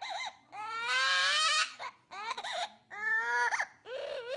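An animal giving a string of long, wailing cries that sound like a crying baby, four or five in a row; the longest, about a second in, rises slowly in pitch.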